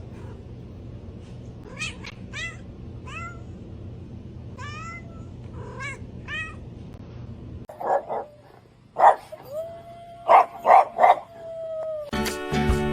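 Cat meowing: a run of about seven short, high calls that fall in pitch, over a steady low hum. After a break there are several louder meows.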